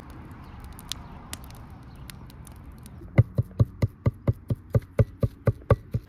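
Wood fire crackling faintly in a mud stove under a steaming pot. About three seconds in, a heavy cleaver starts chopping wild greens on a wooden board: a steady run of sharp chops, about four or five a second.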